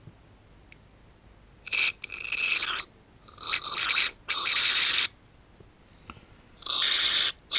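Several hissing puffs of breath blown by mouth through a small carburetor jet or port, each lasting up to about a second. Air passes through, showing that the port is clear and flowing.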